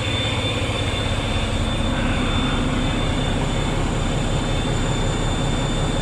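Truck engine idling steadily, with a faint high whine over the low running.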